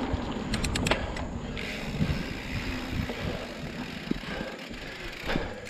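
Mountain bike rolling over a dirt singletrack trail: tyre and drivetrain noise with a few sharp rattling clicks about a second in. A rushing hiss comes in about one and a half seconds in and eases off near the end.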